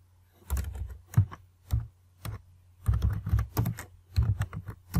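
Typing on a computer keyboard: a run of key clicks, a few scattered strokes at first, then quicker bursts of keystrokes from about three seconds in.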